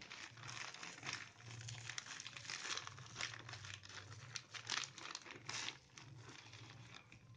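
Plastic courier mailer with a bubble-wrap lining crinkling and tearing in irregular crackles as it is pulled apart by hand.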